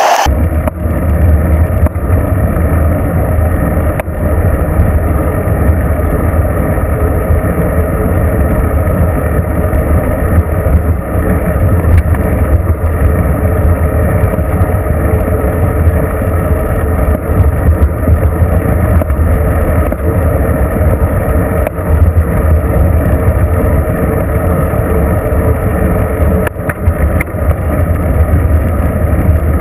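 Wind buffeting and road rumble on a bicycle-mounted GoPro while riding on pavement: a loud, steady low rumble with a few short knocks from bumps.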